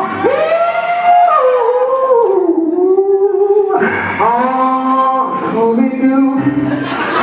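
A solo voice singing a slow church song, held notes that slide up and down, with a short break about three and a half seconds in before the next phrase.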